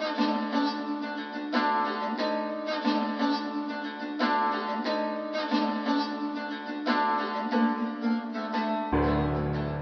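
Instrumental background music: a plucked-string melody of repeated notes with no bass, and a low bass coming back in near the end.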